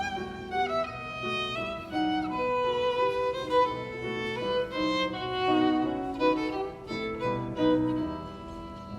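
Background music led by violin, a melodic string line playing over the soundtrack.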